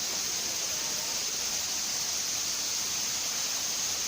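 Waterfall rushing close by: a steady, even hiss of falling water with no breaks.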